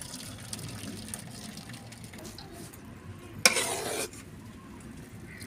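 Pot of basmati rice boiling in water, bubbling steadily. About three and a half seconds in comes a sudden loud noise lasting about half a second.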